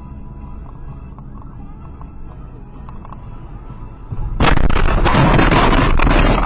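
Car running on a wet road with steady engine and tyre noise. About four seconds in, a sudden loud crash of a car collision follows, with crunching noise for about two seconds.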